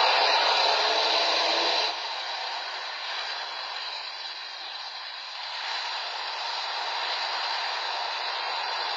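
T-72 tank's diesel engine running under load as it climbs out of a ditch, heard as a thin, hissing noise on an old recording. The sound drops abruptly about two seconds in, then carries on steadier and quieter.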